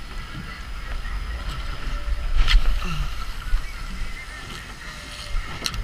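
Small boat's motor running under way, with wind buffeting the microphone and water rushing along the hull; two sharp knocks, one about two and a half seconds in and one near the end.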